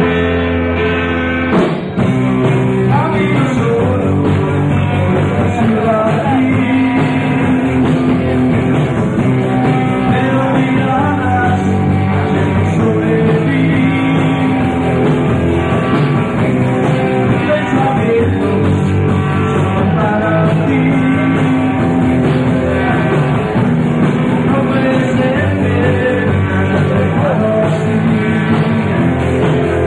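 Rock band playing live: electric guitars, bass and drums with a singing voice. A short drop about two seconds in, then the full band plays on steadily.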